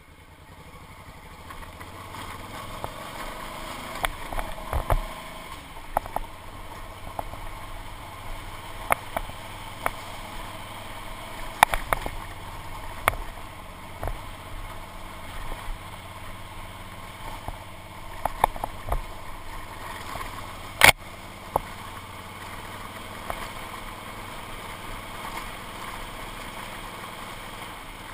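Motorcycle engine running steadily at low speed, with sharp knocks and rattles as the bike jolts over a rough, rocky dirt road; one knock about three-quarters of the way through is much louder than the rest.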